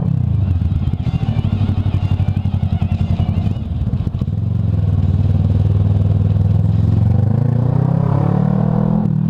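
Kawasaki ER-6n's parallel-twin engine running while riding, its note easing briefly partway through and then climbing in pitch near the end as the bike accelerates.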